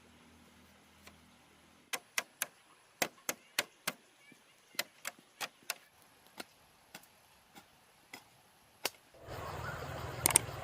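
A run of about twenty sharp, irregular knocks or chops, some close together and some spaced out. Near the end a steady noisy hum comes in.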